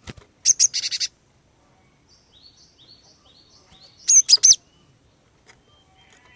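Female cinereous tit (glatik batu) calling: a loud burst of rapid, sharp chirps about half a second in, a softer run of short repeated notes, then another loud burst of chirps about four seconds in.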